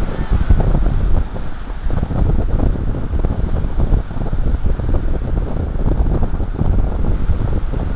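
Wind buffeting the microphone: a loud, irregular low rumble that gusts up and down.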